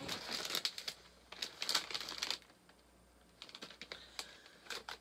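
Takeout food packaging crinkling as it is handled, a dense crackling for the first two seconds or so, then a short pause and a few sparser crinkles.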